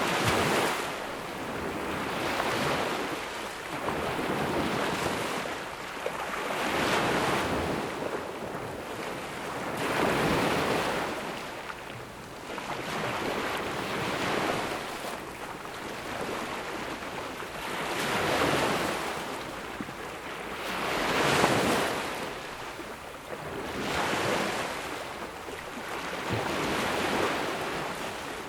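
Small ocean waves breaking and washing up on a sandy beach, the surf swelling and falling back every two to three seconds.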